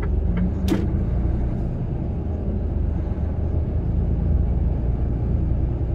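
Steady low rumble of a truck heard from inside its cab, with a single sharp click a little under a second in.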